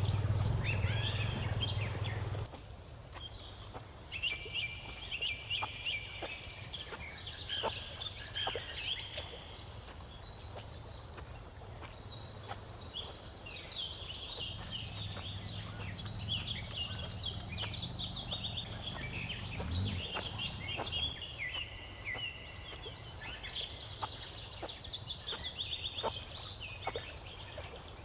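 Birds calling and chirping in many short, repeated calls over a steady outdoor background. A low rumble in the first couple of seconds cuts off suddenly.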